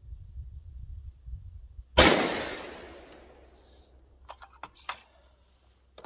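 A single shot from a SCAR 17S battle rifle in 7.62×51 (.308): one sharp crack about two seconds in that rings out and dies away over more than a second. A few sharp metallic clicks of the rifle being handled follow, after a low rumble before the shot.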